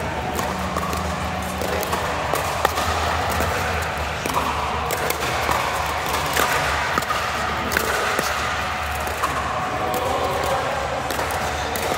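Pickleball play: a series of sharp, irregular pops of paddles hitting the plastic ball, over a steady low hum.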